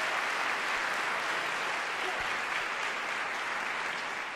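Audience applauding, a dense steady clapping that slowly eases off toward the end.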